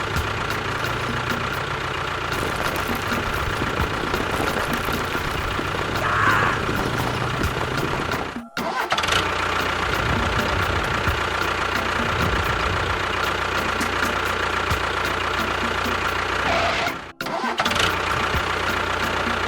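A motor running steadily, with a thin steady whine over a rough hum. It drops out sharply twice, a little before halfway and again near the end.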